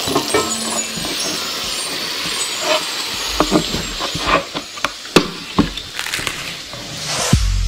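Edited intro sound effects under a cooking montage. A steady hiss gives way to a run of sharp clicks and knocks, then a rising whoosh ends in a deep boom near the end.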